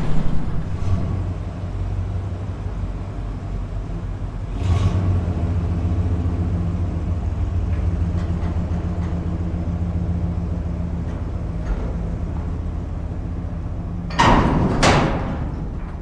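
Pickup truck engine running at low speed while it pulls a loaded-down grain cart out of a shed, growing louder about four and a half seconds in. Two loud clattering knocks come near the end.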